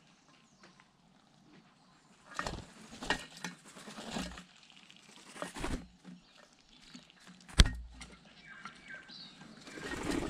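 Tui flying in to a sugar-water feeder: a series of whooshing wingbeats and landing thumps from about two seconds in, a sharp knock past the middle, and more wing noise near the end.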